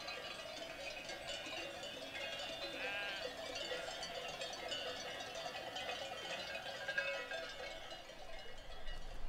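A flock of sheep bleating, many calls overlapping, with bells ringing among them; one bleat stands out about three seconds in.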